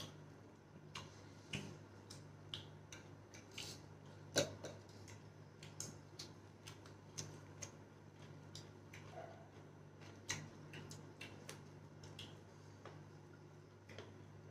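Close-up eating sounds of two people eating with their hands: irregular soft mouth clicks, lip smacks and crunches from chewing, over a steady low hum. One click about four and a half seconds in is sharper than the rest.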